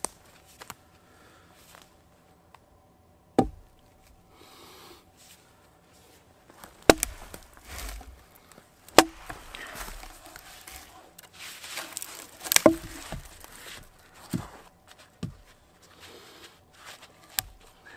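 Small axe chopping a dead, barkless log: four heavy strikes a few seconds apart, then a few lighter knocks near the end.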